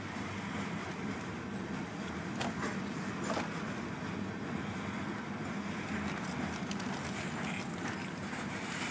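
Freight train of covered coil steel cars rolling past a grade crossing: a steady rumble of wheels on rail, with a few sharp clicks about two and a half to three and a half seconds in. Heard from inside a stopped car.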